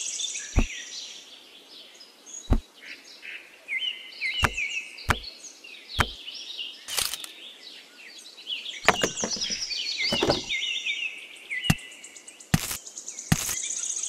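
Small birds chirping and twittering, with about a dozen sharp knocks or cracks at irregular intervals.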